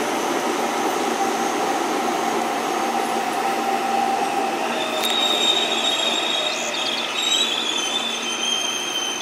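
Commuter train running on the tracks: a steady rolling noise, with high metallic wheel squeal setting in about halfway through.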